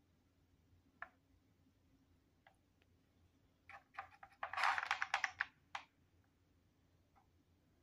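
Hard plastic clicking and rattling from a cat treat puzzle as a cat paws at its pegs: a couple of single clicks, then a quick run of clacks lasting about two seconds around the middle.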